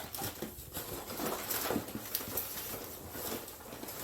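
Irregular scraping, creaking and clicking of a metal screw eye being twisted by hand into a PVC pipe, with hands handling the pipe.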